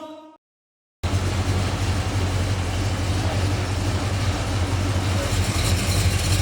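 Background music fades out. About a second in, the steady idle of the Holden Commodore VK SS Group A's V8 engine cuts in abruptly, a deep, even rumble.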